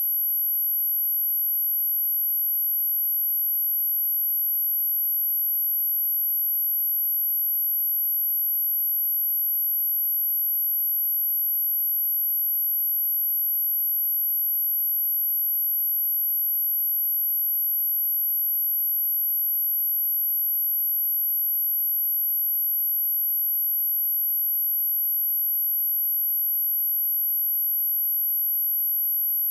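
A pure 11744 Hz sine-wave test tone, a single very high, steady whistle at constant level, used as a speaker test and speaker-cleaning tone.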